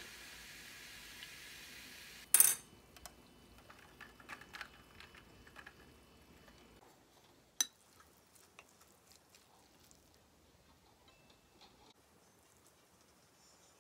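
A steady fizzing hiss from a jar mug of sparkling drink stops about two seconds in. Then a loud sharp glass clink and a run of lighter knocks as the jar is handled. Later a metal spoon clinks once against a ceramic bowl, followed by faint scrapes and taps.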